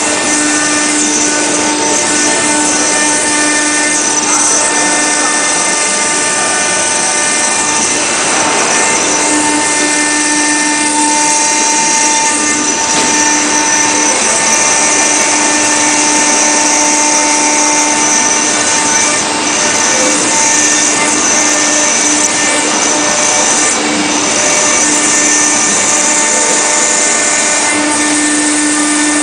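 Marble CNC router spindle carving a relief into a marble slab with a small bit under coolant spray: a steady whine with a gritty cutting hiss, one lower tone cutting in and out as the bit moves through the stone.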